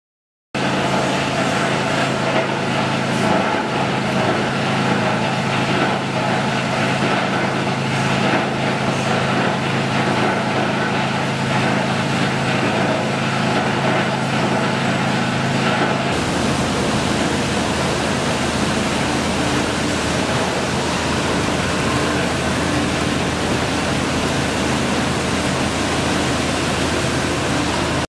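Plastic film washing and recycling line running: a steady, loud din of motors and machinery with a low hum. The hum changes character about halfway through.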